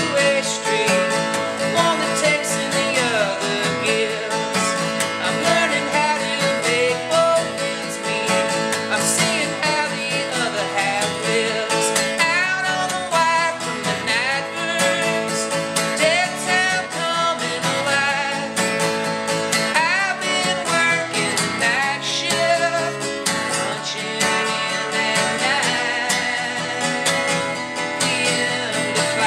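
A man singing a song while strumming an acoustic guitar, a live solo performance.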